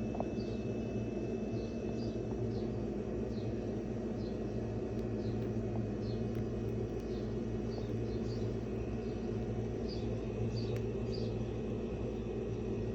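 Steady low hum with faint, short high chirps repeating about once or twice a second.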